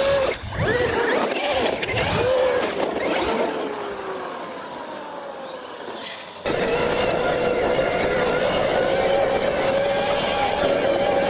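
Brushless electric motors of Traxxas X-Maxx RC monster trucks whining, the pitch rising and falling with the throttle, and one winding down in a long falling whine. About six seconds in there is an abrupt cut to a steady high motor whine over a hiss of dirt as an X-Maxx spins up in the dust.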